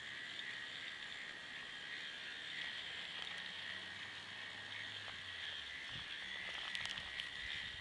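Electric motor and plastic gear train of a K'NEX four-wheel-drive toy truck whining steadily as it drives, with a few sharp clicks near the end.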